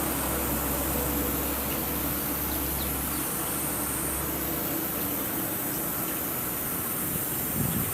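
Steady hiss of background noise with a low hum that stops about three seconds in.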